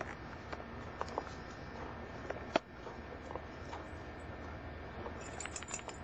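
Scattered light rustles and small clicks of a young dog nosing and pawing through wood chips and dry leaves, with one sharper click about two and a half seconds in and a cluster of crackles near the end.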